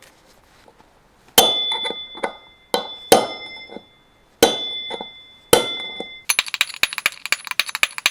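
Hammer striking a steel pin punch to drive a worn wheel bearing out of a quad bike's front hub: five separate blows, each ringing metallically, then about six seconds in a fast run of sharp metallic clicks.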